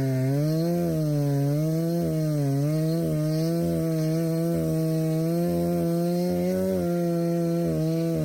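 Two-stroke chainsaw cutting wood with a dull chain, the engine pitch dipping and recovering again and again as it bogs under load in the cut, then holding steadier near the end.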